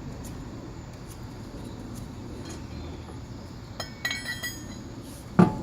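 Loose steel lug nuts clinking against each other with short metallic rings, a few times about four seconds in, then a single dull thump just before the end.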